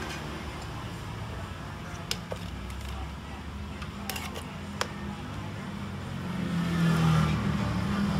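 Steady low background hum with a few sharp clicks about two and four to five seconds in. Near the end a louder steady low drone swells in.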